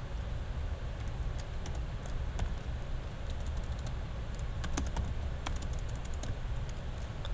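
Computer keyboard being typed on: scattered, irregular keystrokes with short pauses between them, including a backspace and then typing a word into a text field.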